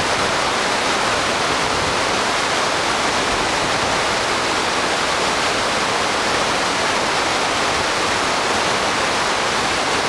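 Large twin waterfall pouring down a rock face into whitewater rapids. It makes a steady, loud, unbroken rush of falling and churning water.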